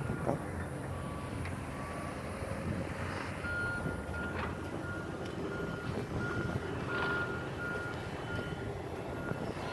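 A vehicle's reversing alarm beeping in a single high tone at an even rate, about one and a half beeps a second, plainest from about three seconds in, over a steady low rumble.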